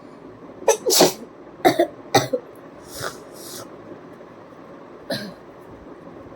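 A person letting out a quick run of short, explosive sneezes: about five in the first two and a half seconds, then two breathy puffs, and one more sneeze about five seconds in.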